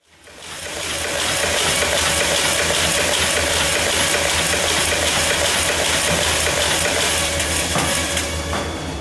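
Can-making machinery running in a factory: dense metallic clattering and chinking over a steady whine and low hum, fading up over the first second.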